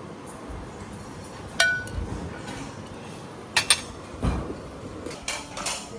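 Several light clinks and knocks of hard objects. The first, about a second and a half in, rings briefly; a quick pair follows past the middle, then softer knocks.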